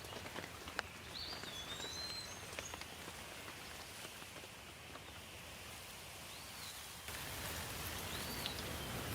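Steady rain with scattered drops ticking close by, and a few short bird chirps. The rain gets louder about seven seconds in.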